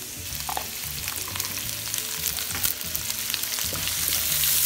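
Minced garlic and chopped onion sizzling and crackling in hot oil in a nonstick wok, stirred with a wooden spatula. The sizzle grows louder toward the end.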